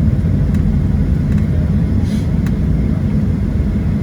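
Steady low rumble of a Boeing 737-700 heard from inside the passenger cabin, with a few faint clicks and a brief hiss about two seconds in.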